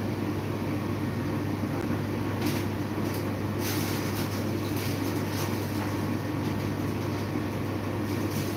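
A steady low machine hum, like a fan or motor running, with a few faint clicks about two and a half to four seconds in.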